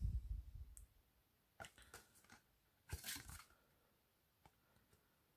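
Cardboard earphone box being handled: a low knock and rubbing at the start, a few light clicks, and a short scrape of cardboard about three seconds in.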